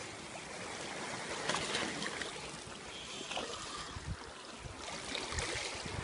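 Sea water sloshing and lapping against shoreline rocks, with a few low thumps in the second half.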